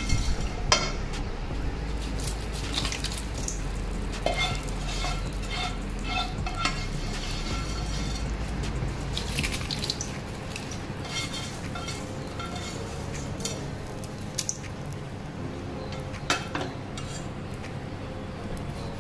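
Spatula stirring curd rice in a stainless steel bowl, with scattered metal-on-metal clinks and knocks against the bowl. About halfway through, the tempering of cashews, curry leaves and chillies fried in ghee is spooned in with a slotted ladle, which scrapes and taps on the bowl.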